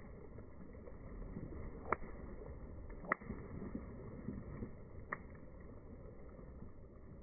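Bonfire crackling, with three sharp pops about two, three and five seconds in, over a steady low rumble.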